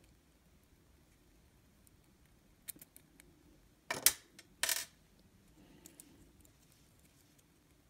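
A few sharp little clicks from the small plastic and metal parts of an N scale Kato SD40-2 truck, its side frames and wheelsets, being handled and fitted. The loudest two come close together about four seconds in.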